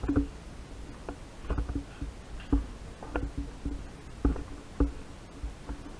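Footsteps on hard floors and stairs, an uneven tread of dull thuds about two a second.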